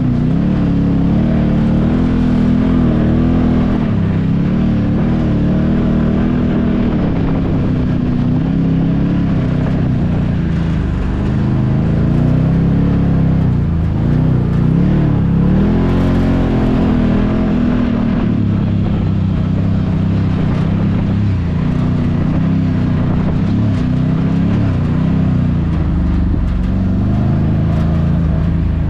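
Can-Am Maverick side-by-side's 1000cc Rotax engine running hard and continuously. Its pitch keeps rising and falling as the throttle is worked, over a constant rush of noise.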